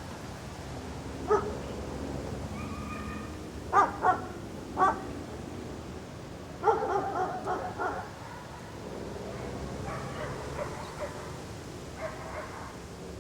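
A dog barking: single sharp barks about a second in and around four to five seconds, a quick run of barks near seven seconds, and fainter barks and whines later. Under them runs a steady low outdoor background rumble.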